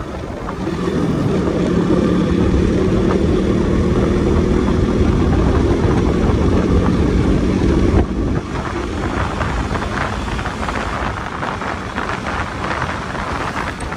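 Motorcycle engine running at a steady speed under low wind rumble on the microphone while riding. About eight seconds in the engine tone cuts off suddenly, leaving wind and road noise.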